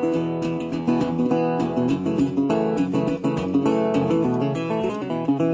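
Acoustic guitar music: a steady run of quickly plucked and strummed notes.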